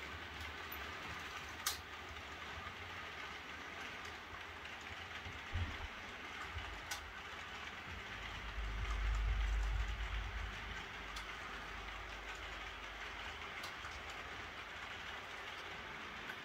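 Model railway train running on the layout track: a steady rolling hiss of small wheels on the rails, with a few sharp clicks at rail joints. A low rumble swells about eight seconds in and fades again by ten.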